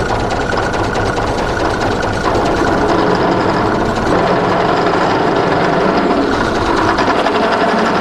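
Drill press running with a step drill cutting through a thin oiled metal plate, opening a 1/8-inch pilot hole up to the 25/64-inch step. It is a steady grinding cut with a slight rise in level about two seconds in, and the bit chatters in the thin plate.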